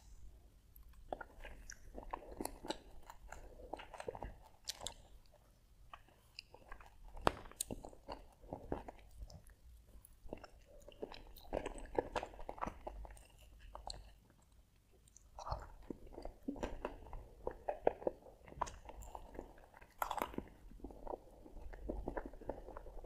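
Close-miked chewing of ice cream topped with cashews and raisins: wet mouth sounds with crunching bites, in stretches broken by short pauses.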